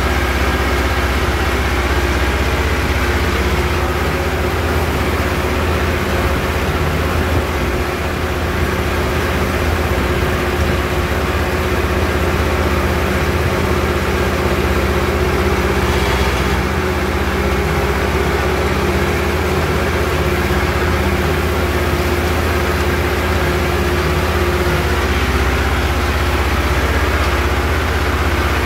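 A tractor's diesel engine running steadily at a constant speed, heard close up from the driver's seat, working a rotary hay tedder.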